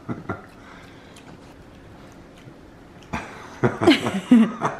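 Faint wet clicks of a capuchin monkey licking chip seasoning off its fingers. About three seconds in comes a man's voice in short bursts with a sliding pitch, like chuckling.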